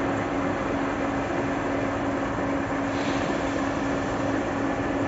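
Coffee dryer running at full steam: a steady mechanical drone with a constant hum.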